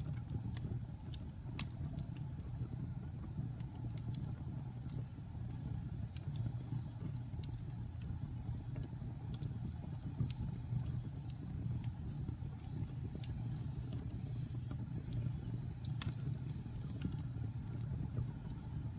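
Wood fire burning in a fireplace: a steady low rumble from the flames with scattered sharp crackles and pops, the loudest about sixteen seconds in.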